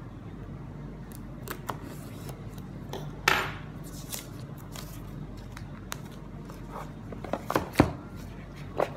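Clear plastic shrink wrap being torn and peeled off a smartphone box, with one short tearing rip about three seconds in and scattered crinkles and taps of fingers on the wrap. Near the end the box is turned over with a few knocks and one heavy thump.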